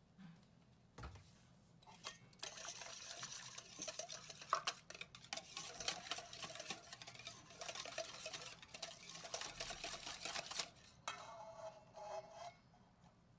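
Utensil stirring or whisking in a bowl, with metal rattling and clicking against the bowl for about eight seconds. It stops, then a shorter burst follows.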